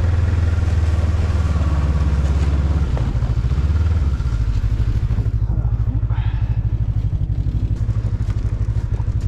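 A small gasoline engine running steadily, its pitch shifting about three seconds in and again about a second later.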